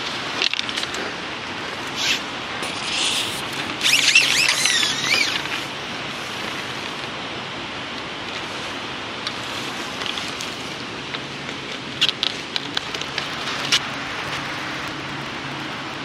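Steady rushing outdoor noise, like wind or distant water, with a few short clicks, and a brief high wavering, chirping sound about four seconds in.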